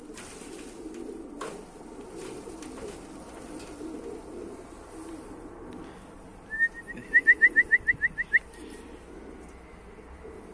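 A flock of domestic pigeons cooing in a low, steady murmur. Past the middle, a quick run of about nine high, sharp chirps lasts under two seconds.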